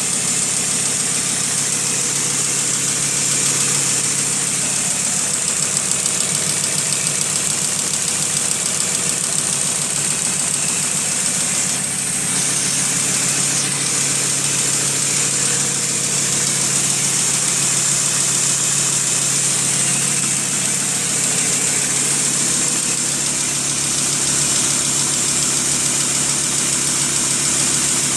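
Lancia Lybra engine idling steadily, with a constant high hiss over the engine note; the owner takes it for a bad sound, a fault of unknown cause.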